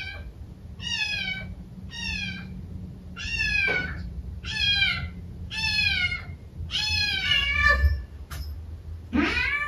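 A kitten left alone meowing over and over, about once a second, each cry high and falling in pitch, with a longer, louder cry near the end: separation crying, a needy young kitten calling for its absent owners.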